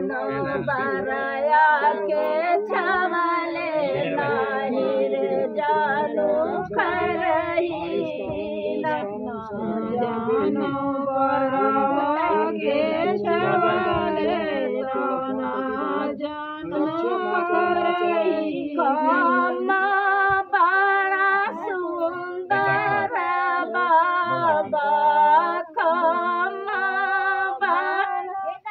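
Women singing a traditional dehati folk song for the bans gadna (bamboo-planting) wedding rite, unaccompanied, phrase after phrase with short breaths between.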